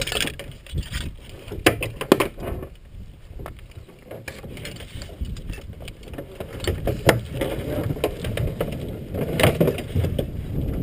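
Handling noises in the cockpit of an SZD-51-1 Junior glider at rest on the ground: scattered clicks, knocks and rustling as the pilot moves about, with a sharp clack near the end as the canopy is opened.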